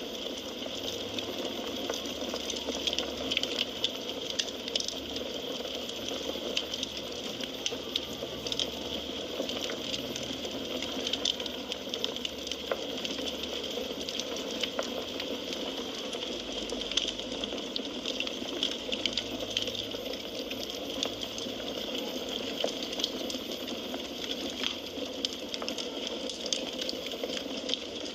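Wood fire burning, crackling steadily with frequent small sharp pops and snaps over a constant soft hiss.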